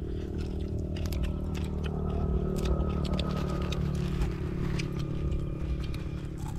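Plastic and foil food packets crinkling and rustling as hands pick at food, with scattered clicks of handling and chewing, over a steady low hum.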